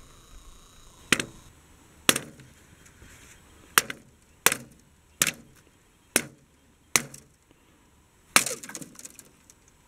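A walking pole's tip striking and breaking a thin sheet of ice on water, about eight sharp cracks roughly a second apart. The last comes about eight seconds in and is followed by a quick run of smaller cracks.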